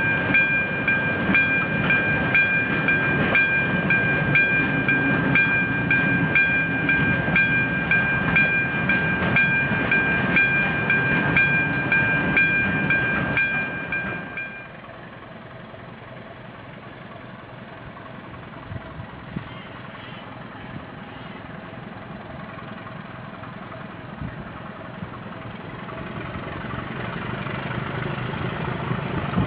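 Freight wagons rolling close past, with a steady high-pitched wheel squeal and clicking over the rail joints. About 14 seconds in it cuts to a quieter diesel locomotive engine running further off, growing louder near the end.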